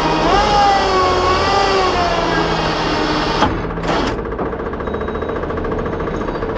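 Heavy diesel truck engine running steadily with a coarse rattle. Over it, a high wavering whine rises and falls in pitch and cuts off sharply about three and a half seconds in, with a brief burst of the same just after.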